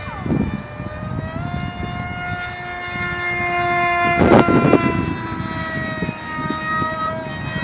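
The electric brushless motor and propeller of an RC foam F-22 model whining in flight, the pitch stepping up about a second and a half in as the throttle rises. Gusts of wind rush over the microphone twice, the louder one about four seconds in.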